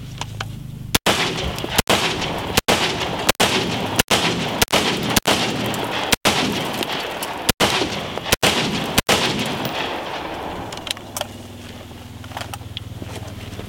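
AR-15-style rifle firing about eleven shots into a car at an unhurried, uneven pace, roughly one every half second to a second and a half; the firing stops about nine seconds in.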